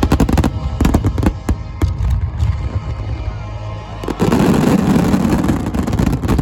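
Fireworks shells bursting in rapid succession over background music, with a dense, louder stretch of crackling starting about four seconds in.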